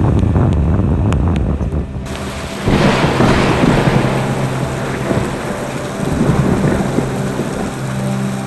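Car driving in rain: a low rumble for the first two seconds, then abruptly a steady low engine and road hum with rain hiss, and a louder surge of noise just under a second later.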